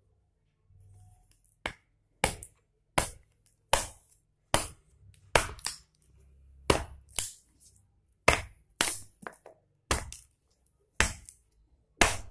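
Small keser hatchet chopping a boxwood spoon blank held upright on a log stump: about fifteen sharp chops, roughly one every two-thirds of a second, striking downward to cut away the waste wood while roughing out the spoon.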